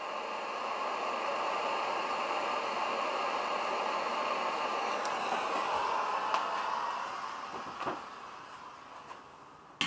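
Handheld propane torch flame hissing steadily, fading out about eight seconds in as the torch is taken off. A sharp click comes near the end.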